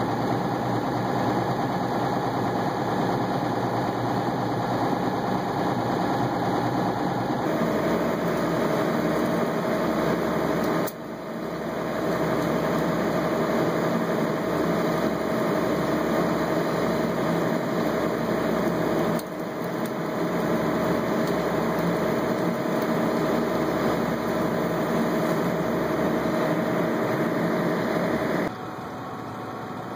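Engine of an aquatic weed-harvesting machine and its shore conveyor running steadily, the hum shifting in pitch and level abruptly a few times.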